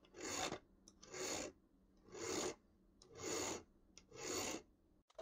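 Cut ends of bolts being smoothed down by hand, so that they are not jagged after being cut off with a Dremel: five even abrasive strokes, about one a second.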